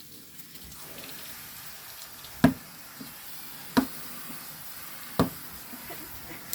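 A basketball bouncing, four hard thuds about a second and a half apart, each followed by a fainter knock, over a faint steady hiss.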